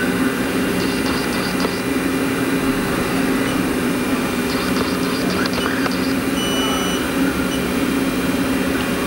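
2012 Haas VF-2 CNC vertical mill running a machining cycle with flood coolant spraying inside the enclosure: a steady machine hum with a low tone under a hiss. Short stretches of higher hiss come about a second in and again around the middle.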